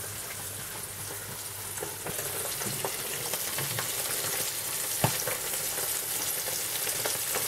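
Small tugun fish sizzling as they fry in oil in a frying pan, a steady hiss, with a few clicks of a fork against the pan as they are turned; the sharpest click comes about five seconds in.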